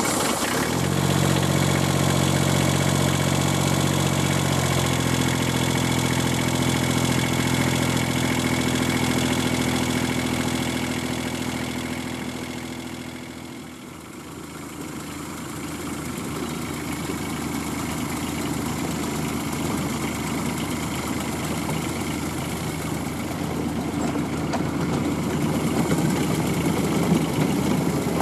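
Diesel engine of a Fenlow 4w-4wDH miniature-railway diesel-hydraulic locomotive idling steadily just after starting up, its note shifting slightly about five seconds in. Around the middle the sound dips and comes back rougher and noisier, the engine still running and slowly growing louder toward the end.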